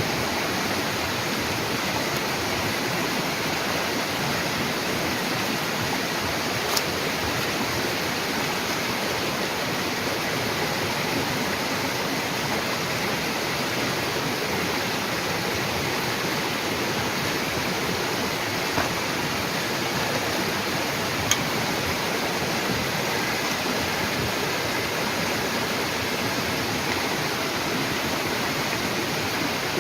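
Steady rushing noise like running water, even throughout, with a few faint clicks.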